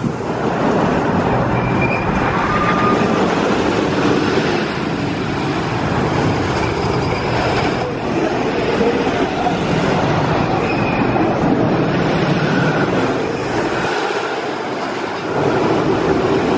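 Mine Blower wooden roller coaster train running along its wooden track, loud and steady.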